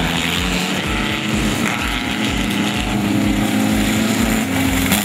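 Engine of a Volkswagen Beetle off-road race car running hard on a dirt track, holding fairly steady pitches, over a regular low pulse about four times a second.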